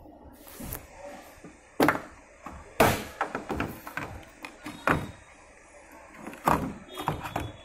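Plastic knocks and clicks as a top-loading washing machine's control-panel housing and circuit board are handled by hand. There is a sharp knock a little under two seconds in, a cluster of clicks around three seconds, and further knocks near five and six and a half seconds.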